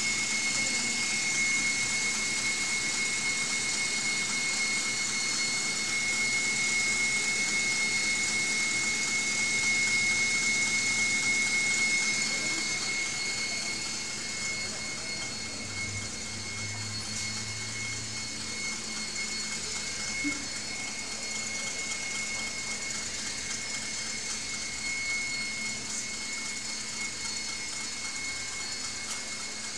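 Electric stand mixer running at full speed with its balloon whisk, whipping eggs and yolks to stiff foam: a steady motor hum with a high, even whine, a little quieter after about thirteen seconds.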